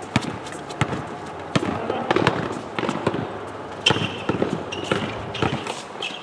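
Basketball bouncing on an outdoor hard court as players dribble and run: a string of sharp, irregular thuds, with a few short high squeaks of basketball shoes.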